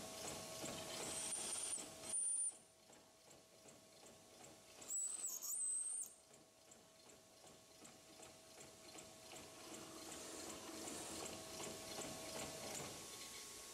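Drill press running with a countersink cutter cutting into the bore of a cast-iron boss, grinding against the metal over a steady motor hum. The cutter squeals sharply and high twice, about two seconds in and again around five to six seconds in.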